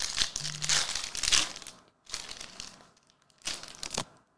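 Foil wrapper of a 2020-21 Revolution basketball hobby pack being torn open and crinkled by hand. There is a long crackly rustle over the first two seconds, then a shorter one about three and a half seconds in that ends with a sharp click.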